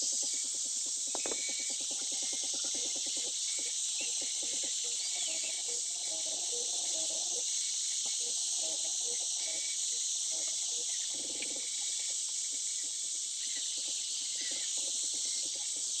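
Angle grinder running with its disc grinding a small stainless steel piece, giving a steady high-pitched hiss.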